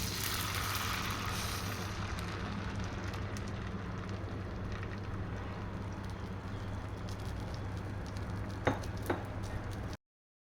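Omelette frying in a hot pan, a sizzling hiss that is strongest in the first couple of seconds and then settles to a steady sizzle over a steady low hum. Two sharp knocks come close together near the end, and the sound cuts off just before the end.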